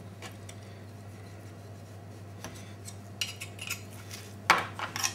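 Knife blade scraping down lamb rib bones to clean off fat and sinew. The short scraping strokes come in about halfway through and grow quicker and louder near the end.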